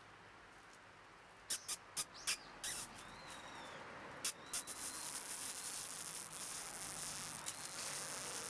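Insects chirping: several short, high chirps, then a continuous high-pitched buzzing trill from about halfway through. Faint bird calls sound behind it.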